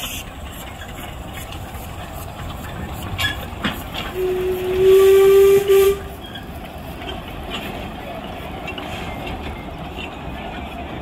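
A narrow-gauge steam locomotive's whistle gives one steady blast of nearly two seconds, about four seconds in. Under it is the rumble of the loco and goods wagons rolling past on the rails, with a couple of sharp clanks just before the whistle.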